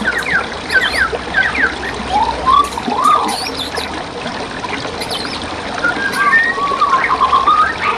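Songbirds chirping and singing over a steady rush of running forest stream water, with quick falling notes near the start, a few lower arched notes around the middle, and a run of rapid chirps in the second half.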